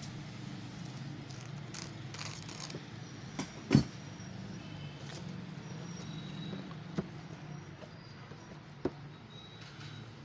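Handling noises from packing a parcel: a few sharp knocks, the loudest about four seconds in, and light rustling, over a steady low hum.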